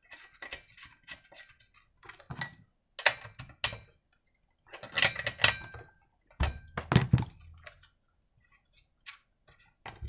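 Small metal clicks, rattles and taps of a plug wrench on a chainsaw's engine as the spark plug is screwed into the cylinder and the plug cap is fitted. The sounds come in irregular clusters, the loudest a little after halfway.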